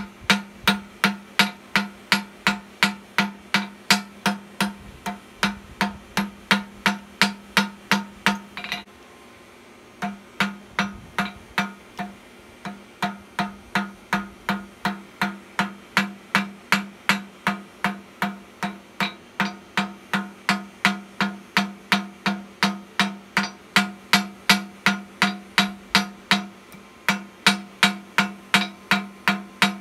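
Hand hammer drawing out a hot steel bar on an anvil: steady strikes, about two and a half a second, each ringing with the anvil's tone. The hammering breaks off for about a second roughly a third of the way in, then carries on.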